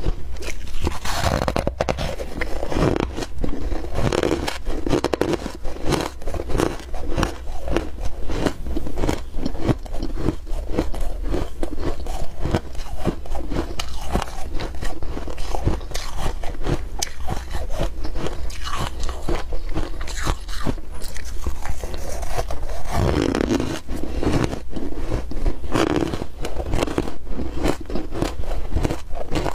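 Ice being bitten and chewed, a dense unbroken run of squeaky, crunchy crunches.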